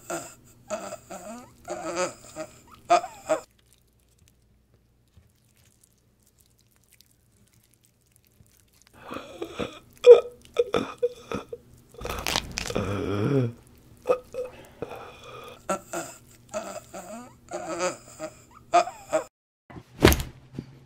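Gore sound effects: bursts of wet crunching and squelching that stop for several seconds, then resume, with a long, low, falling sound in the middle and one sharp, loud hit near the end.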